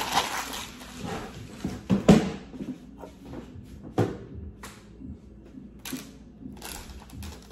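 Tissue paper rustling and crinkling as it is handled, then a few sharp knocks of items being put down and moved about on a counter, the loudest about two seconds in.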